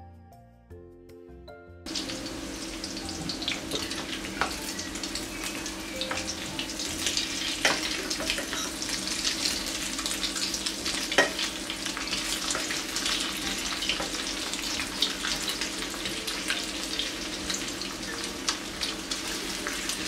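Egg-coated cauliflower florets sizzling and crackling as they fry in hot oil in a pan, with sharp pops throughout over a steady low hum. Soft music plays for about the first two seconds before the frying sound cuts in.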